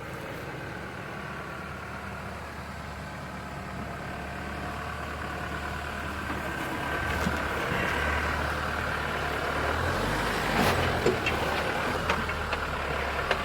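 A 4x4's engine running at low revs as it crawls over rough ground, growing louder as the vehicle comes closer. Near the end there are short knocks and clicks.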